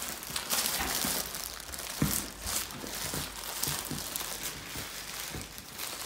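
Packaging crinkling and rustling as a mail-order plant is unwrapped from its box, with a sharper crackle about two seconds in.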